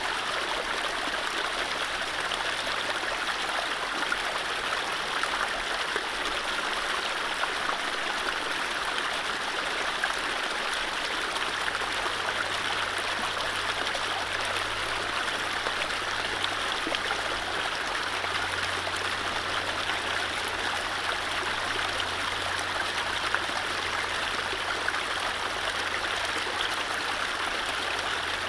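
Mountain stream running over low rapids: a steady rush of water with fine trickling and gurgling.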